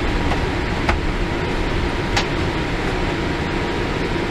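Steady cabin noise inside a Boeing 787-8 taxiing after landing: an even rumble and air hiss, with two faint clicks about one and two seconds in.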